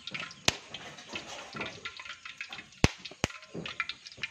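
Live salted fish flapping and slapping wetly against one another in a steel bowl, with three sharp cracks, the middle one the loudest.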